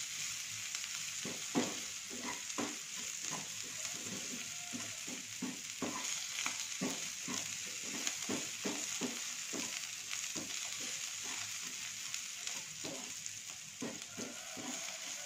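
Sliced scallion and celery stalks with spice paste sizzling in a small non-stick frying pan while a wooden spatula stirs them, scraping and tapping against the pan about twice a second.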